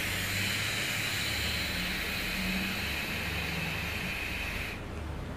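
Joyetech eGrip 2 e-cigarette being drawn on while its rebuilt 1-ohm nichrome RBA coil fires at 30 watts: a steady hiss of air and vaporising liquid that cuts off near the end.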